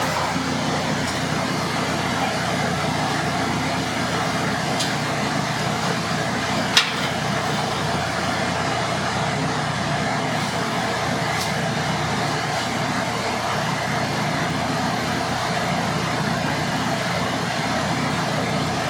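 Steady roar of a blacksmith's forge blower driving air into the coke fire while the steel heats. One sharp click comes about seven seconds in.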